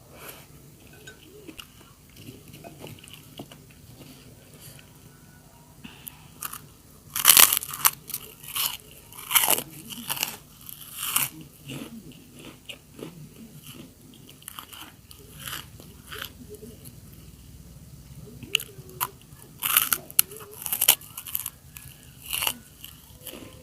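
Kerupuk crackers bitten and chewed close to the microphone: soft chewing at first, then two spells of loud, sharp crunches, one about a third of the way in and one near the end.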